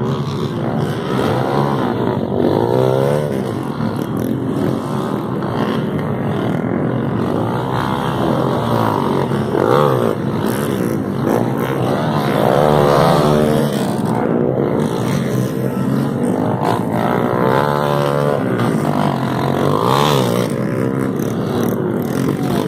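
Motocross dirt bike engines revving hard as the riders race over the dirt jumps, the pitch rising and falling again and again with throttle and gear changes as several bikes overlap. It is loudest about halfway through, as a bike passes close.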